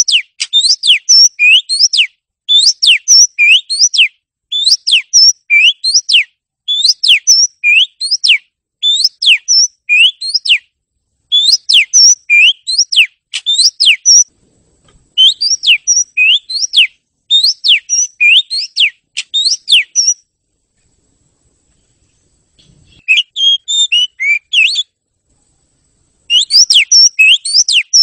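Oriental magpie-robin (kacer) in full song: short phrases of sweeping whistled notes repeated over and over. About two-thirds of the way through it goes silent for a couple of seconds, gives a short scratchier burst, pauses again, then takes up the repeated phrases once more. This is the 'gacor' (constant, showy) song played to provoke quiet or silent kacer into singing.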